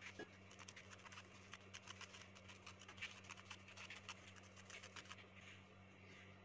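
Quick, faint scratching of a spoon rubbing dry flour through a metal mesh sieve, with a click at the start. The scratching stops about five seconds in, over a low steady hum.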